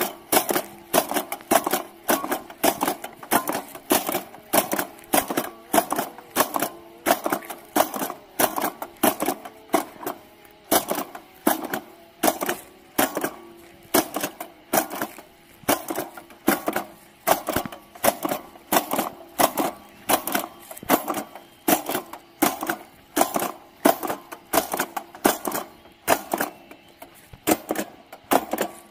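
A hand-held jab-type fertiliser applicator clacking as it is stabbed into the soil and lifted, its metal dispensing jaws snapping at each jab to drop fertiliser into the ground. The sharp clacks come in a steady walking rhythm, about three every two seconds.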